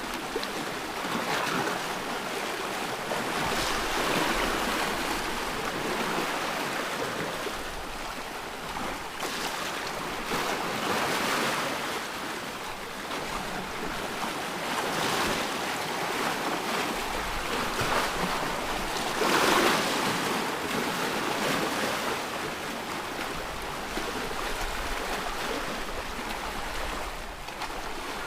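Ocean waves washing in, a continuous rushing hiss that swells and fades every few seconds, the loudest surge a little past two-thirds of the way in.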